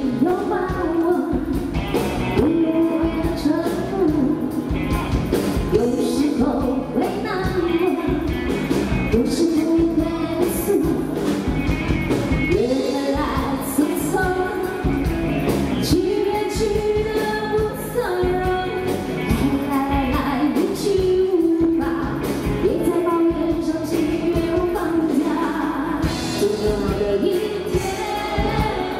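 A woman singing a pop song into a microphone, backed by a band with drum kit and keyboards.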